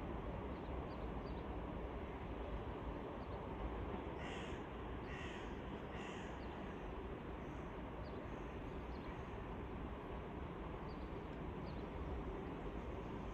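A crow cawing three times, about a second apart, over steady background noise.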